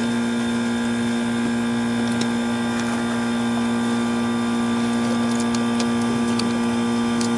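Steady electrical hum with one strong low tone, with a few light metallic clicks about two-thirds of the way in as a screwdriver works the terminals of a replacement compressor contactor.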